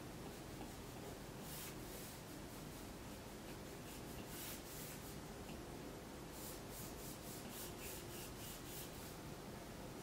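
Stylus strokes rubbing across an iPad screen while drawing lines: a few separate strokes, then a quick run of short strokes at about three a second in the second half, over a faint steady room hum.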